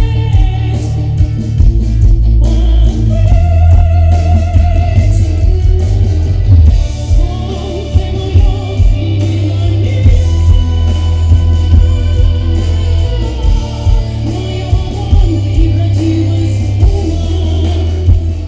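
A woman singing with vibrato into a microphone over loud amplified music with a heavy, steady bass.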